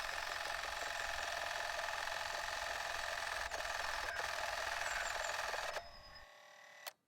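A steady mechanical whirring with a fine, rapid flutter that cuts off about six seconds in, leaving only a faint sound.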